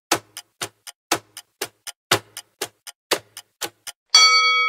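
Clock ticking sound effect for a countdown timer, about four ticks a second alternating loud and soft. Just before the end the ticking stops and a single chime rings out, marking the answer reveal as time runs out.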